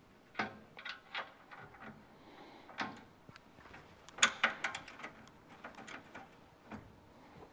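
Scattered light clicks and knocks of hardware being handled at a new aluminium radiator, as its mounting bolts are set into the mounts by hand. The loudest cluster comes about four seconds in.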